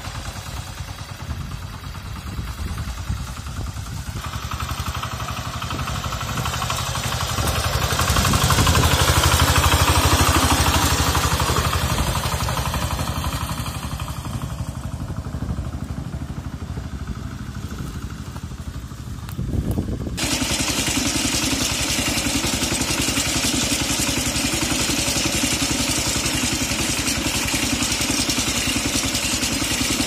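Single-cylinder diesel engine of a Kentavr MB 1010DE-6 walk-behind tractor running under load as it tows a trailer of firewood. It swells to its loudest about ten seconds in and fades, then from about twenty seconds in runs steady and louder, heard close up from the driver's seat.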